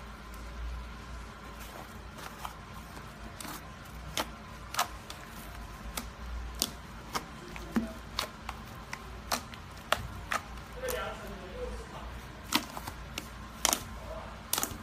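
Thick blue slime being kneaded and pressed by hand in a plastic basin, giving irregular sharp clicking pops, about one or two a second, with a few louder pops near the end.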